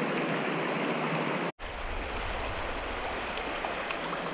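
Shallow mountain creek rushing over rocks, a steady splashing rush of water. It cuts out for an instant about a second and a half in, then returns with a low rumble added underneath.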